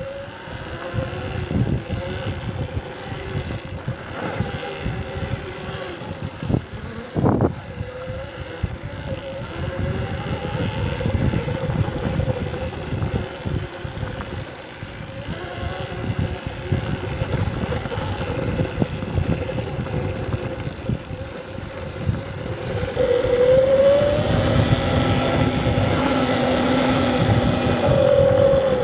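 Electric dirt bike being ridden over sand and dirt: its motor and drivetrain whine holds steady, then rises and falls with the throttle and grows louder over the last few seconds, over an uneven rumble of the bike bouncing on the terrain. One sharp knock comes about a quarter of the way through.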